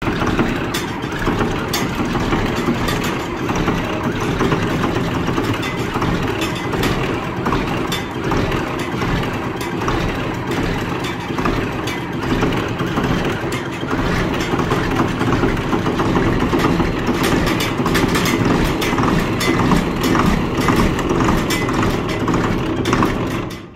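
John Deere 4850 tractor's six-cylinder diesel engine running steadily just after a cold start, with frequent sharp ticks over the engine sound.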